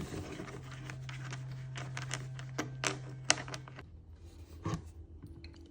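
Irregular clicks and light knocks of screws and metal chair parts being handled while the chair's base is unscrewed, over a low steady hum that stops about two-thirds of the way in.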